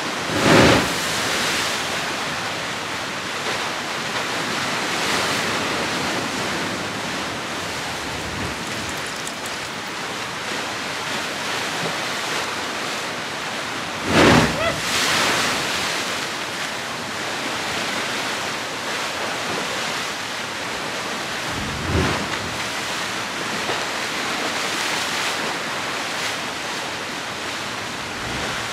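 Sea surf surging and breaking in a narrow rock gully, a steady rush of water with louder surges about half a second in, around fourteen seconds in and about twenty-two seconds in.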